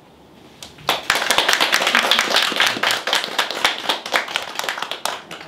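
Small audience applauding. The clapping starts about a second in and dies away near the end.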